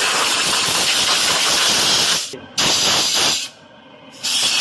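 Compressed air hissing loudly from a blow gun in long blasts. It cuts off sharply twice: briefly about two and a half seconds in, and for just under a second near the end, before it starts again.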